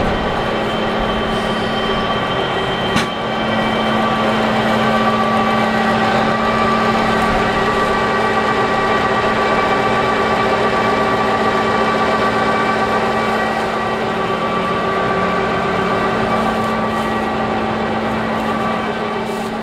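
Desna-Polesie GS12 grain combine running at close range: a steady machine hum from its engine and belt-driven drives, with a strong low tone and many higher steady tones. A single sharp click comes about three seconds in.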